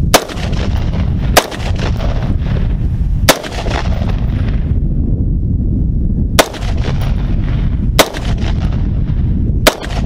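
AR-15 rifle fired as single semi-automatic shots, six in all at uneven gaps of one to three seconds. Each is a sharp report followed by a fading echo, over a steady low rumble.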